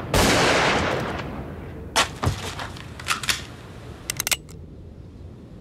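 Gunfire in a shootout. A loud double-barrelled shotgun blast with a long echoing tail comes at the start, then several sharper single shots about two and three seconds in. A quick run of clicks follows near four seconds.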